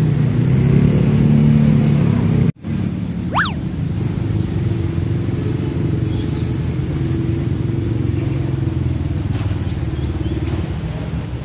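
Motorcycle and street traffic noise, a steady low rumble. A brief break about two and a half seconds in, followed by a single quick whistle-like sweep.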